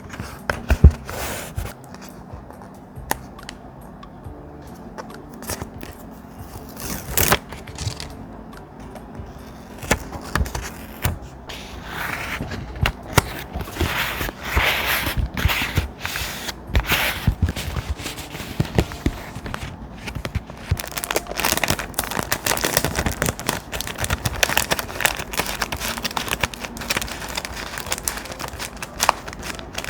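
Paper handled close up: sharp taps and clicks, then denser rustling and scraping of thick paper from about twelve seconds in.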